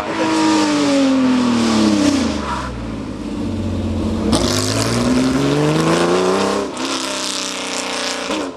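Classic Porsche 911 rally car's air-cooled flat-six engine at full stage pace: the revs fall as it slows into a bend, then climb hard as it accelerates out, with one upshift near the end. A sudden hiss joins in about four seconds in and lasts two or three seconds.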